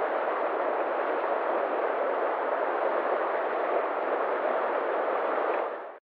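Fast stream rushing over rapids: a steady, even rush of water that fades out near the end.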